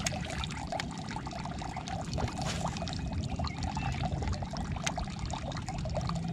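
Water sloshing and gurgling against a boat's hull: a steady wash of small splashes and trickles.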